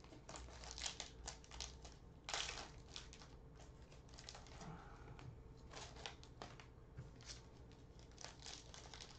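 Foil wrapper of a trading-card pack crinkling and tearing as it is opened by hand: a faint scatter of short crackles, loudest about two seconds in.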